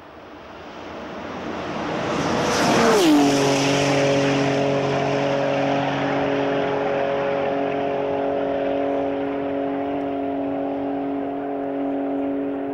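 Porsche 930 Turbo's turbocharged air-cooled flat-six coming up fast and passing by at speed. Its engine note drops sharply in pitch as it goes past about three seconds in, then holds a steady drone as the car runs away down the road.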